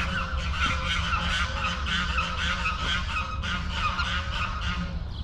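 Several waterfowl calling continuously, their calls overlapping, over a low steady rumble.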